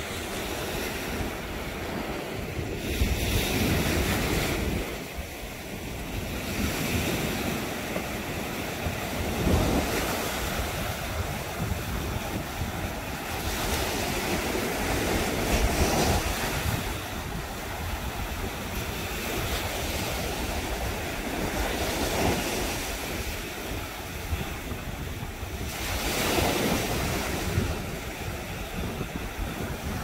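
Small waves breaking and washing up a sandy beach, the surf swelling louder every few seconds, with wind buffeting the microphone.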